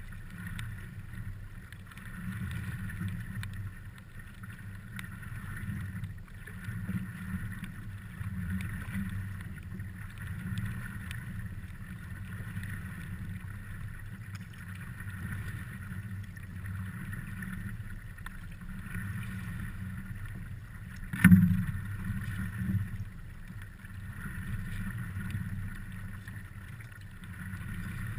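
Water sloshing and lapping against the nose of a stand-up paddleboard under way, an uneven steady rumble. A single sharp knock comes about three-quarters of the way through, with a smaller one just after.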